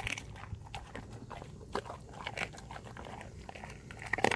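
Alaskan Malamute chewing a raw turkey wing: irregular wet crunches and clicks of teeth working through skin and bone, with a louder crunch just before the end.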